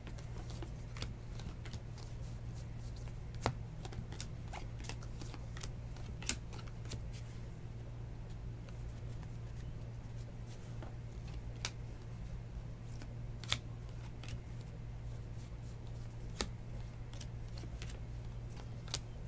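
Trading cards being flipped through by hand: scattered light clicks and taps as cards slip off the stack and are laid down, over a steady low hum.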